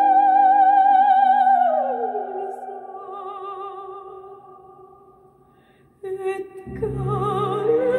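Music played through 4-inch dual-voice-coil speakers in 3D-printed back-loaded horn (Nautilus) enclosures. A high, wavering operatic melody line holds a note, slides down about an octave, and fades almost to silence. Near the end a new passage enters with deep bass.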